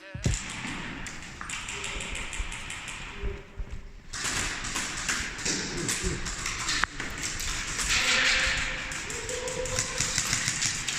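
Quick runs of sharp clicks and taps, typical of airsoft guns firing at close quarters, over a background of movement noise.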